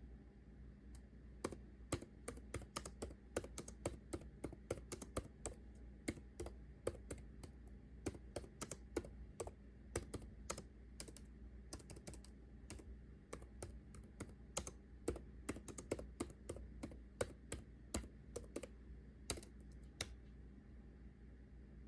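Typing on a computer keyboard: a faint, quick, uneven run of key clicks, several a second.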